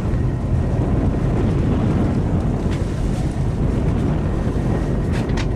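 Steady wind buffeting the microphone over the low rumble of a boat and the sea, with a few faint clicks near the end.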